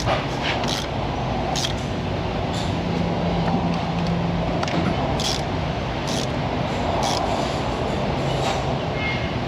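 Steady rushing background noise with short light clicks and clinks scattered about once a second, from hand tools working on the engine as the new spark plugs go in.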